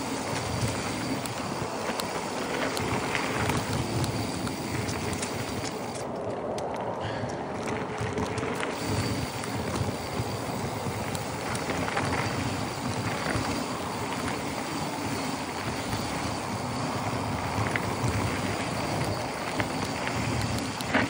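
Mountain bike riding down a dirt trail strewn with dry leaves: steady tyre noise over dirt and leaves with many small clicks and knocks, and wind on the microphone.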